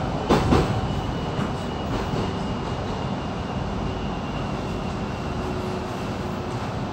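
Inside an X'Trapolis electric suburban train carriage: a steady rumble with a faint high whine, and two sharp knocks in quick succession shortly after the start.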